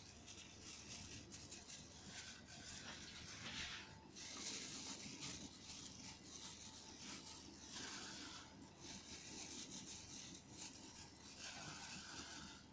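Faint rustling and rubbing of a thin plastic food glove as a hand spreads toppings over pizza dough, coming and going in spells of a second or so.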